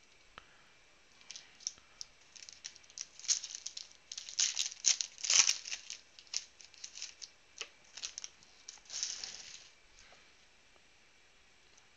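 Foil wrapper of a Panini Prizm football card pack being torn open and crinkled by hand: a run of sharp, crackling rustles, loudest in the middle, that stops about ten seconds in.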